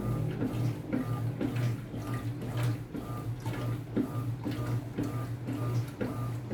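Electrolux Essential Care 8.5 kg washing machine running a cycle: a steady motor hum with a regular knocking and clicking about twice a second.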